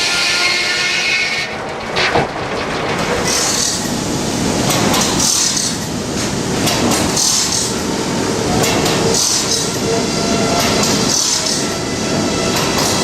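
Steam-powered sawmill machinery running: a dense mechanical rumble with a hiss breaking out about every two seconds, and a sharp knock about two seconds in.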